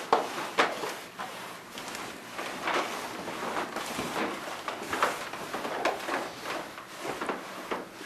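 Footsteps on a wooden floor: irregular knocks and shuffles, about one every half second to second.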